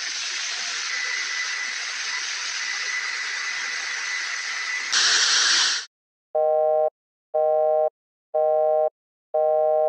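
Steady hiss with a faint high whine through it, swelling louder for a moment about five seconds in and then cutting off. After a short silence come four identical electronic beeps, each about half a second long, one a second.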